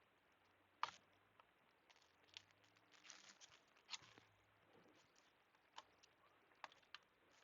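Near silence, broken by about a dozen faint, scattered small clicks and taps of handling at the workbench, the sharpest about a second in.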